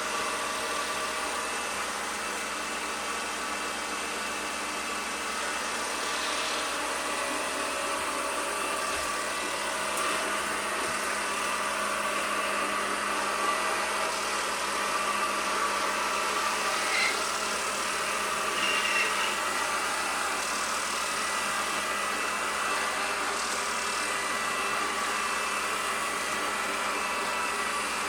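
Ecovacs Deebot Ozmo 950 robot vacuum running, its suction fan and brush motors giving a steady whir with a constant hum.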